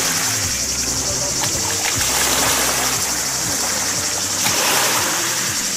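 Music with held low notes changing every second or so, over a light wash and splash of water as someone wades into calm sea.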